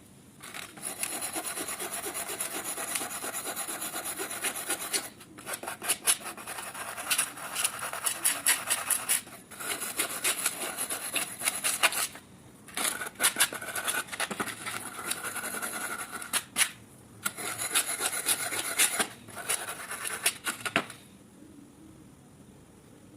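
Abrasive rubbing on a rusty metal wrench during rust removal. It starts as a steady scraping, then turns into quick back-and-forth strokes broken by a few short pauses, and stops shortly before the end.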